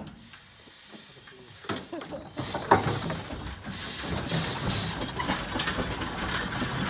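Steam traction engine moving off under steam: loud bursts of steam hiss start about two seconds in, with one sharp knock, then the engine keeps running steadily as it pulls away.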